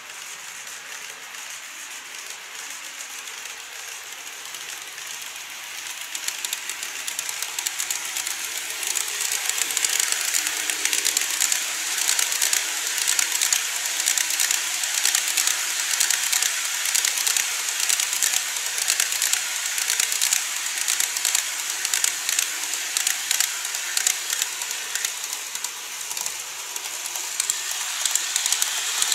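Model train running around curved plastic elevated track: a rushing hiss with rapid clicking of small wheels on the rails, growing louder from about six seconds in as a model 14-series blue sleeper train passes close by. A faint steady hum runs under it through the middle. The sound dips briefly near the end, then rises again.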